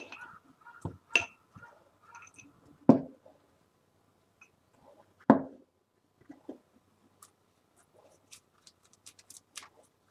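Handling noises on a wooden cutting board as shiitake caps are brushed with sauce and set down: scattered knocks and taps, sharpest about one, three and five seconds in, then a run of light clicks near the end.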